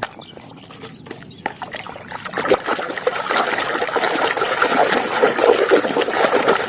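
Water trickling and splashing over muddy toy vehicles as they are washed, louder from about two seconds in.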